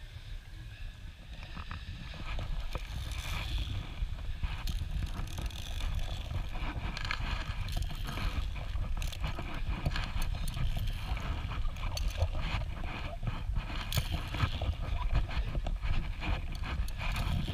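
Irregular knocks, clicks and rattles of footsteps and metal safety gear on a suspended wooden-plank bridge of a treetop ropes course, over a steady low rumble from the body-worn camera moving. The sound grows louder from about two seconds in.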